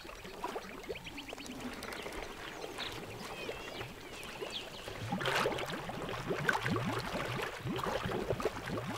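African elephants drinking at a shallow pool, their trunks dipping and skimming water from the surface with many small splashes and trickles. It grows busier and louder from about five seconds in.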